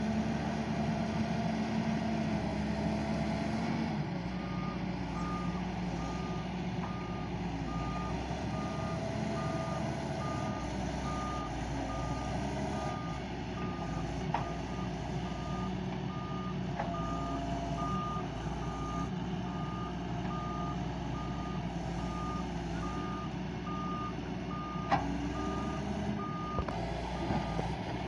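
A heavy vehicle's back-up alarm beeping at an even pace, a little faster than once a second, starting a few seconds in, over a heavy engine running steadily. There are a few sharp knocks, the loudest near the end.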